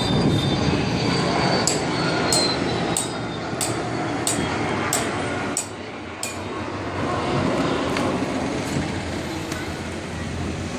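Steady machine-like rumbling noise with sharp, regular clicks about every two-thirds of a second for the first six seconds or so.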